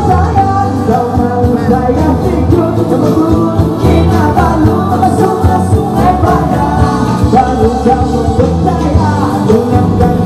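Background music: a pop-rock song with a singing voice over a steady band accompaniment.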